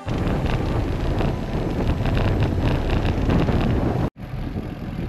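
Wind buffeting the microphone of a bike-mounted camera while riding a mountain bike, mixed with the rumble of knobby tyres rolling on a coarse chip-seal road. The sound drops out for an instant about four seconds in, then goes on a little quieter.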